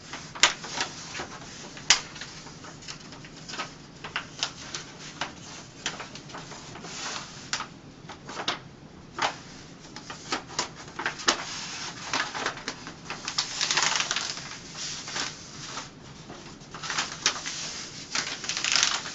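Wax-paper backing of a self-adhesive fabric wallcovering being folded and handled: a string of sharp crackles and clicks, with a longer rustle about two-thirds of the way in.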